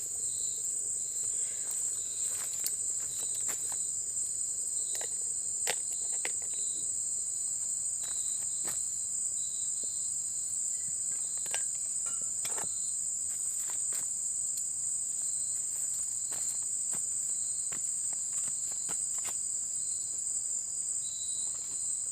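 Steady high-pitched chorus of insects, with a second, lower call pulsing about once a second and occasional light clicks and knocks.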